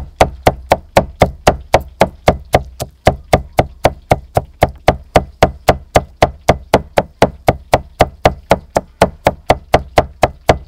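Cleaver mincing garlic on a thick wooden chopping block: a steady, rapid run of knocks, about four a second.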